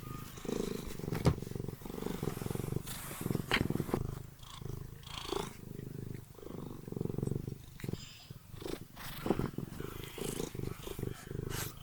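Domestic cat purring close to the microphone in a steady, pulsing rumble, with a few sharp clicks scattered through it.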